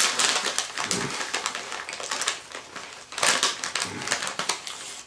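Crinkly plastic-foil Cheetos Crunchy bag rustling and crackling as a hand rummages inside it for chips. It comes in uneven bursts, with a loud flurry about three seconds in.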